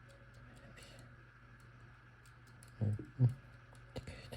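Scattered faint metallic clicks of a disc-detainer pick turning the rotating discs inside an Abloy Classic padlock, with a brief murmur from the picker about three seconds in.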